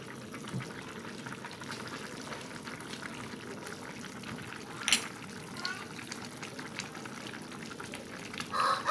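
Pot of vegetables braising in soy sauce and fermented soybean paste, boiling steadily, with one sharp click about five seconds in.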